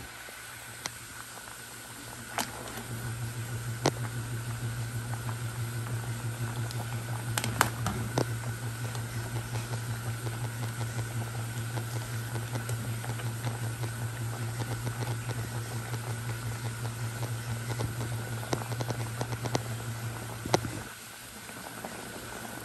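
A pot of soup boiling hard, stirred with a metal ladle that clicks against the pot a few times. A low pulsing hum starts a few seconds in and stops shortly before the end.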